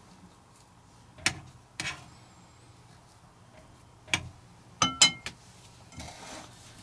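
A spoon scooping scone dough onto a metal convection pan: a handful of sharp clinks and taps, with a quick cluster about five seconds in that rings briefly, and a soft scrape near the end.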